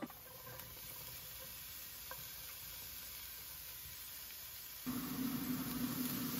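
Food sizzling in a frying pan while being stirred, a steady hiss with a few light ticks. About five seconds in, a steady low hum comes on and stays.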